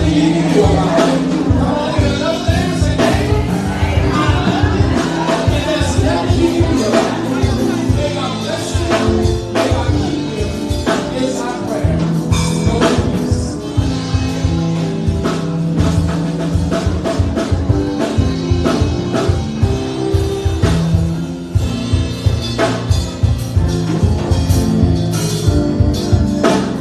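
Live church band playing a closing gospel song: keyboards holding and changing chords over a steady drum beat, with a voice singing over it in places.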